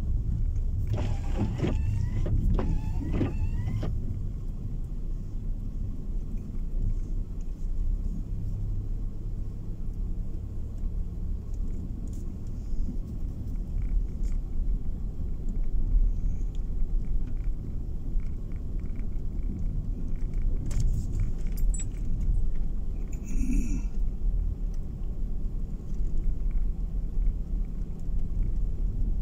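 Car running, with a steady low rumble of engine and tyres on a snow-packed road heard from inside the cabin. A short run of rising squeaks comes about a second in, and a few faint clicks and rattles come later.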